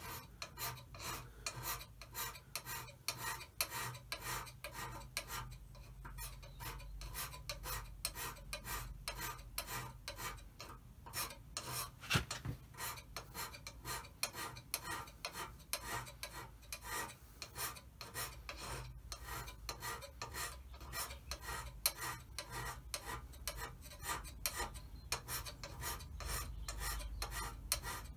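Hand scraper working along the bed way of a Holbrook lathe: a quick, even rasping scrape, about three strokes a second. These are light strokes taking off only the surface of the worn bearing face, not digging oil pockets.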